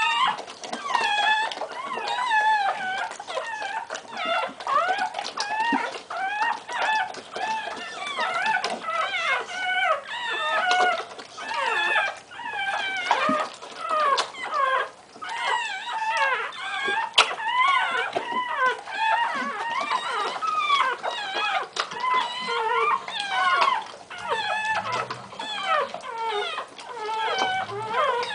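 Newborn English Bull Terrier puppies squealing and whimpering without a break: many high, wavering cries overlapping one another.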